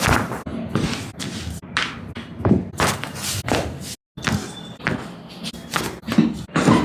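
Irregular series of dull thumps and knocks from a chiropractic treatment session, about one or two a second, with a brief cut to silence about four seconds in.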